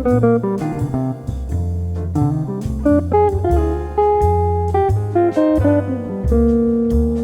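Background music: plucked guitar over a steady bass line.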